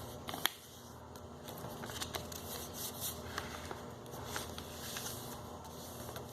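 A sheet of office paper being turned over and folded by hand: soft rustling and creasing with scattered small crackles, the sharpest click about half a second in.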